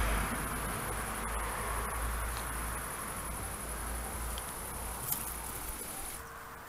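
Crickets chirping steadily in a high, even chirr that stops about six seconds in.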